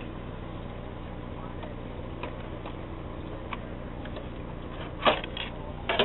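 A GeForce 8600 GT graphics card being worked loose from a motherboard's PCIe x16 slot: a few faint clicks, then a sharp clack about five seconds in as it comes free, over a steady low hum.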